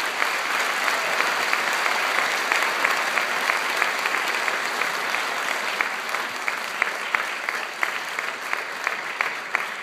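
Audience applauding steadily, easing off a little toward the end.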